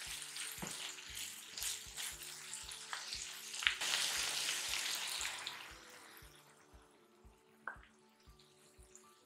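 Garlic and onion sizzling in a frying pan of reduced red wine vinegar, with a few sharp clicks. The sizzle grows louder about four seconds in, then dies away at about six seconds, leaving faint background music.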